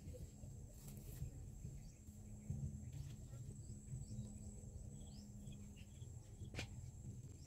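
Rural outdoor ambience: a steady high insect drone with a few faint bird chirps over a low rumble, and a few soft clicks as hands work the soil.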